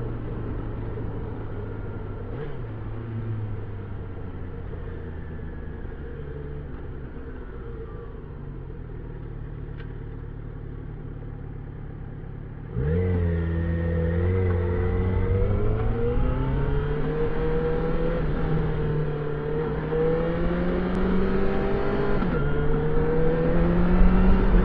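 Yamaha XJ6 Diversion F's 600 cc inline-four with stock exhaust, running at low, steady revs. About halfway through the throttle opens and the engine gets suddenly louder, its note rising steadily under acceleration. Near the end there is a short dip in pitch before it rises again.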